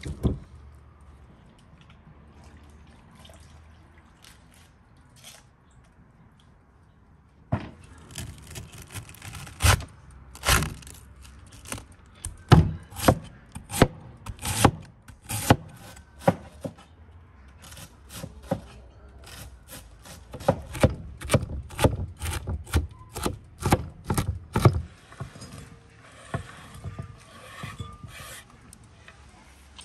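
Cleaver chopping red cabbage on a wooden cutting board: a long run of sharp knocks, a few a second, starting several seconds in after a quiet stretch. Near the end the chopping gives way to softer scraping as the shredded cabbage is pushed off the board.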